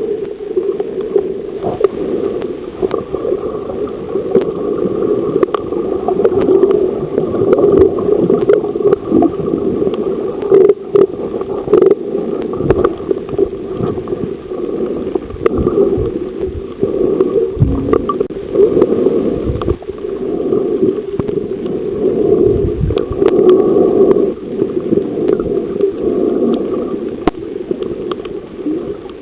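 Muffled underwater sound from a snorkeler's camera: water sloshing and gurgling around the microphone, with scattered sharp clicks and a few low thuds.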